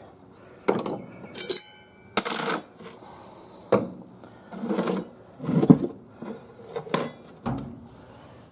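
Metal parts of a 700R4 automatic transmission clinking and clattering as they are handled and set down: about ten separate knocks, some ringing briefly like struck steel.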